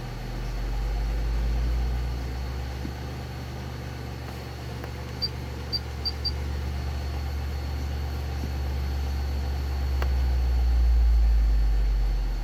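Car audio subwoofers playing a low bass test tone from a frequency-generator app: a steady deep hum that swells twice, louder near the end. Four short high beeps sound about five seconds in.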